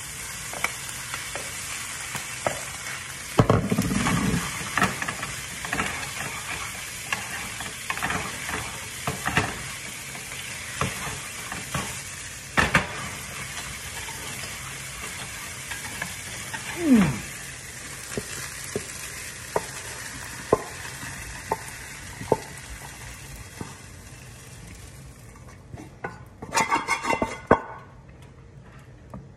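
Shrimp sizzling in butter in a frying pan while a utensil stirs them, clicking and tapping against the pan. Near the end the sizzle dies away and a short burst of scraping and rattling comes as the pan is lifted and tipped.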